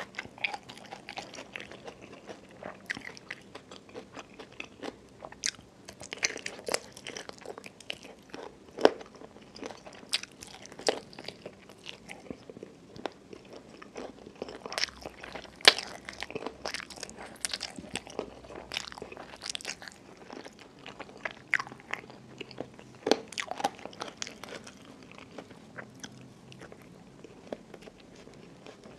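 Close-miked eating: steady chewing with frequent short, sharp crunches as chicken feet and rice with crispy fried catfish are eaten by hand. Two crunches, about 9 and 15 seconds in, stand out as the loudest.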